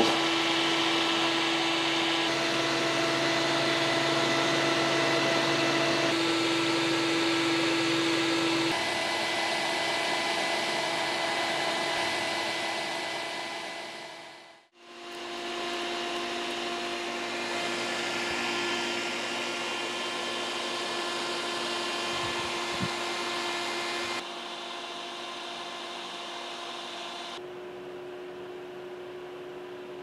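Small axial electric fan running steadily, blowing air through the fins of an aluminium transmission-cooler radiator: a continuous whir with a steady hum. It fades out and back in about halfway, and in the last few seconds it is quieter, with the fan on low speed.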